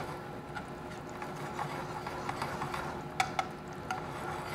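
Sliced garlic sizzling gently in olive oil in a pan as it toasts, with two light metal clicks a little after three seconds.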